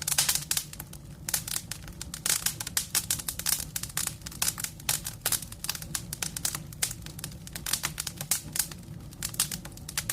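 Wood fire crackling: a fast, irregular run of sharp pops and snaps over a low steady rumble.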